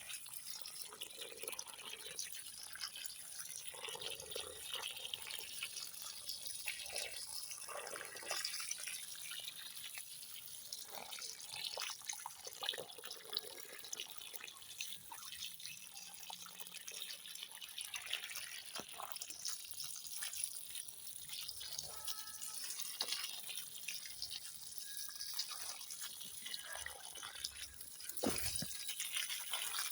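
Irregular dripping and small ticks, water-like, over a steady high hiss, with a louder knock near the end.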